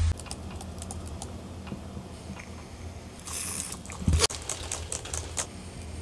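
Laptop keyboard typing, irregular key clicks. A short hiss about three and a half seconds in and a low thump just after four seconds, the loudest sound here.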